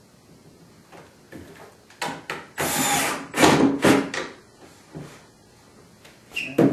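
Power drill driving a screw through a wooden slat into the frame, run in a few short bursts about two to four seconds in.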